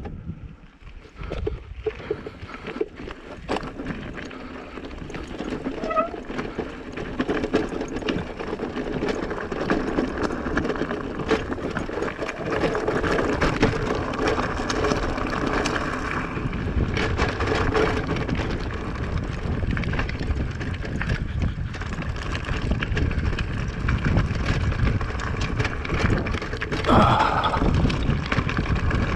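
Mountain bike rolling along a forest trail: tyre noise and the rattle of the bike, with wind on the microphone, getting louder a few seconds in. A brief high squeal sounds near the end.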